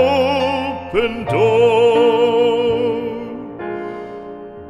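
A classical singer holds long notes with a wide vibrato over piano accompaniment. The voice drops out about three and a half seconds in, leaving soft piano chords that fade.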